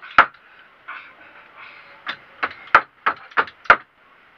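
Hammer striking a wooden bed frame: a single blow, a pause of about two seconds, then a quick run of six blows at about three a second.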